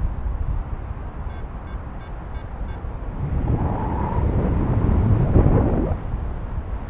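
Wind buffeting the microphone of a paraglider in flight, a low rumble that gusts louder in the middle. Partway in, a paragliding variometer gives a quick run of faint high beeps.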